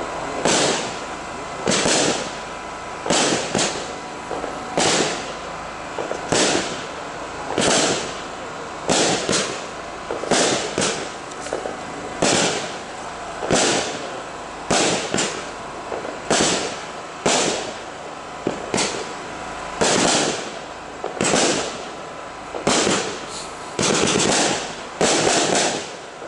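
A Red & White Strobe consumer fireworks cake firing its shots in sequence, the tubes sending up red-tailed shells that burst into white strobing stars and red stars. Sharp bangs come about every one and a half seconds, some in quick pairs.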